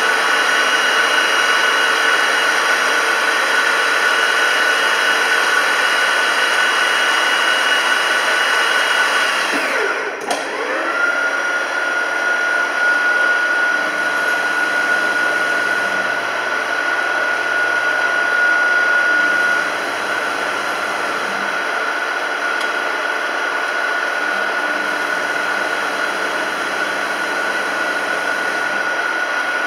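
Deckel FP3 milling machine running with a steady gear whine. About ten seconds in, the whine falls away sharply and climbs back to a slightly lower pitch as the speed is changed. In the second half a lower hum comes in twice, typical of the table feed running.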